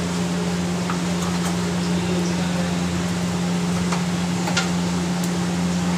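Steady hum of an electric fan running at full speed. A few faint pops and ticks come from cumin seeds frying in hot oil in an iron kadhai.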